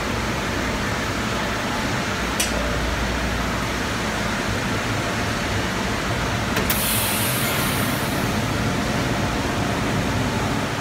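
Steady rushing background noise of a factory workshop's air and machinery, with a faint click about two seconds in and a brief hiss around seven seconds.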